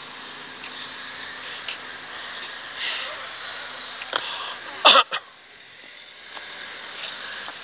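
Street traffic noise, a steady hum, with a brief loud vocal sound about five seconds in.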